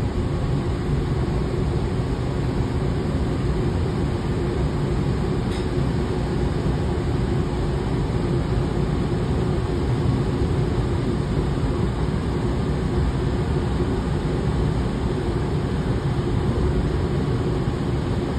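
Cabin noise of a Kansas City streetcar (CAF Urbos 3 light rail vehicle): a steady low rumble with a steady hum running through it.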